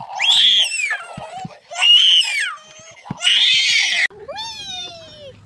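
Baby shrieking with laughter in three loud, high-pitched squeals. A lower voice slides down in pitch near the end.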